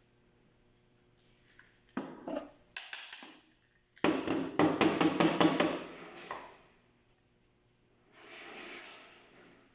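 Hard plastic and metal parts being handled: a few sharp clicks, then a quick run of rattling clatter about four seconds in, and a soft rustle near the end.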